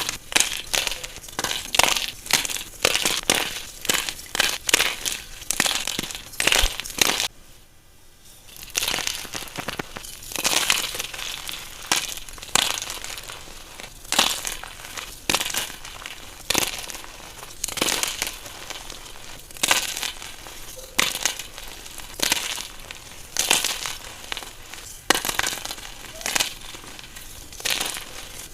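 Blocks of glitter chalk crunching and crumbling as they are crushed by hand, one sharp crunch after another about every half second to a second, with a brief lull about seven seconds in.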